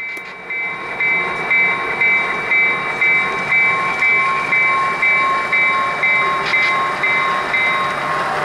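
Model BNSF diesel locomotive's sound decoder ringing its bell, a steady ding about twice a second over the running diesel engine sound. The bell stops shortly before the end.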